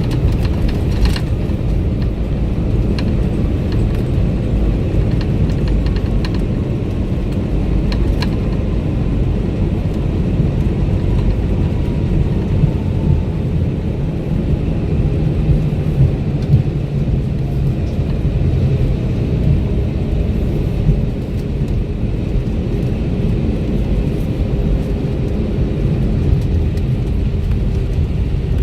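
Cabin noise of an Airbus A321neo on the ground after landing: a steady loud rumble of the wheels and airframe, with the engines' whine slowly falling in pitch as they spool down. A few light clicks.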